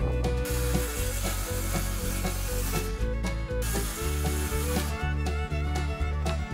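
Circular saw cutting through plywood twice, each cut a harsh hiss: one from about half a second in lasting some two seconds, a second from about three and a half seconds to five. Background country music with a steady beat runs under it throughout.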